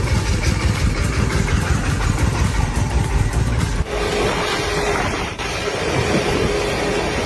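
A vehicle engine running. About four seconds in the sound changes abruptly, and a steady whine joins the engine from there on.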